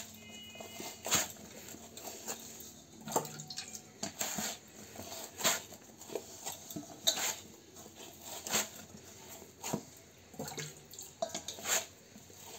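Hot rice-flour dough being kneaded by wet hands in a steel bowl: irregular wet slaps and squelches as the dough is pressed and pushed against the bowl.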